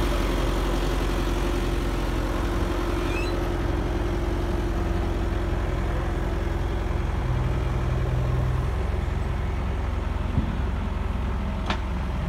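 Diesel engine of heavy construction machinery running steadily, with a short sharp knock near the end.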